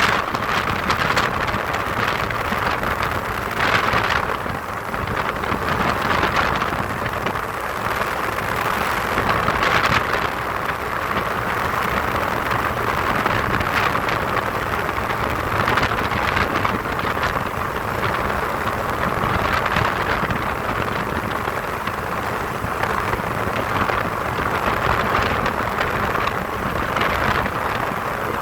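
Ultralight aircraft in flight in strong wind: a steady rush of engine and wind noise on the microphone that swells and eases in gusts every few seconds.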